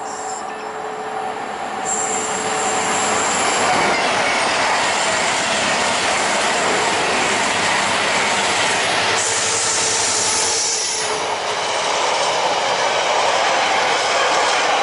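Class 66 diesel locomotive passing with a train of empty container flat wagons: the noise builds over the first couple of seconds as it approaches, then holds loud and steady as the wagons roll past. A brief high-pitched wheel squeal comes about nine seconds in.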